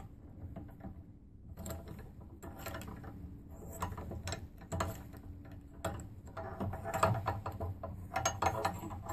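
Steel double flaring tool being taken apart by hand: the forcing-screw yoke is loosened and lifted off the clamp bar, giving irregular metallic clicks, rattles and scrapes.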